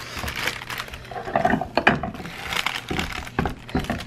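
Cast-iron Victoria tortilla press being worked over a dough ball: parchment paper rustling and crinkling under the hands, with irregular clunks and clicks of the metal lid and lever.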